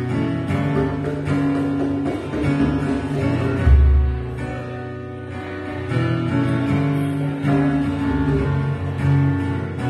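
Acoustic guitar strummed slowly in a live band performance of a slow song, chords ringing on between strums. A deep low thump about four seconds in.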